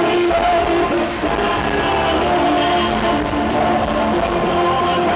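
Live acoustic rock band playing, acoustic guitars strumming through a passage without lead vocals.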